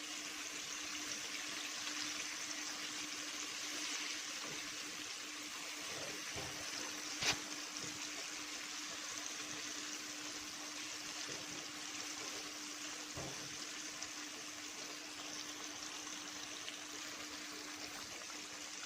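Flour-coated chicken pieces deep-frying in hot oil, a steady sizzle, with one sharp click about seven seconds in.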